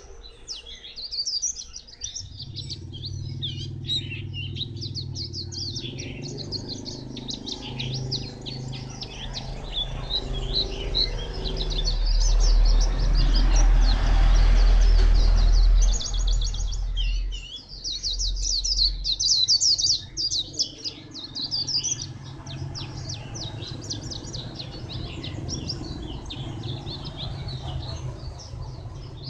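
White-eye singing a long, rapid twittering song of high chirps. A steady low hum runs beneath it, and a low rumble swells loudest between about twelve and sixteen seconds in.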